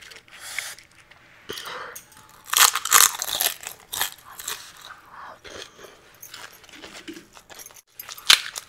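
Close, crisp crunching and wet chewing of pani puri (golgappa), hollow fried shells filled with spiced water. The crunches are loudest a few seconds in, then give way to softer chewing. Near the end comes one sharp crack as a fresh shell is broken.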